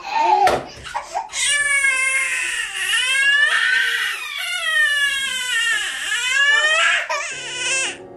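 Baby crying: a run of long, drawn-out wails, several seconds of nearly unbroken crying with the pitch sagging at the end of each wail.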